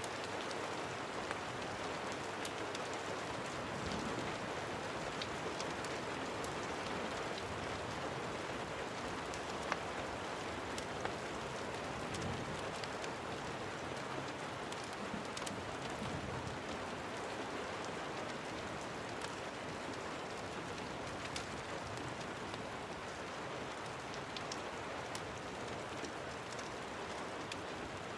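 Steady rain, with scattered faint crackles and pops of a wood fire in a fireplace; two sharper pops come about ten seconds in.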